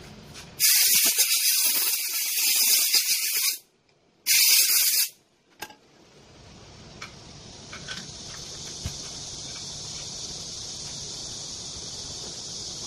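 Two hissing blasts of pressurised gas from a nozzle, such as a compressed-air blow gun or an aerosol spray can. The first lasts about three seconds and the second, shorter one comes about a second later; both cut off sharply.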